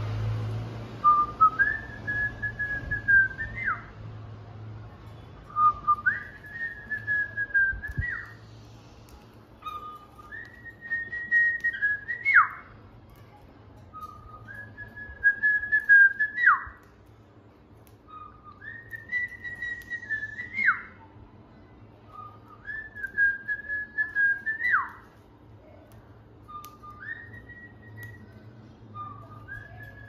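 A cockatiel whistling the same short learned tune over and over, eight times, about every four seconds: a low note, a jump up to a held higher note, then a quick downward swoop. Light clicks and taps come in between.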